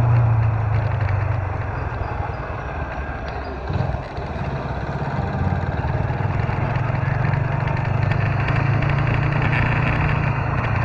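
Small motorcycle engine running under way, with wind and road noise. The engine note eases off about two seconds in and picks up again after about four seconds.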